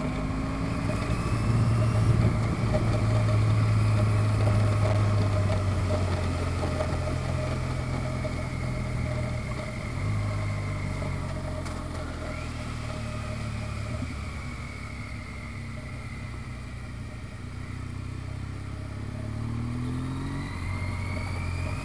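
Motorcycle engine running steadily under way, its note easing slightly over the middle and rising again near the end as it accelerates.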